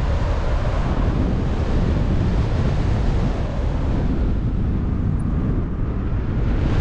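Steady low rumble of wind buffeting the microphone from the airflow of a paraglider in flight.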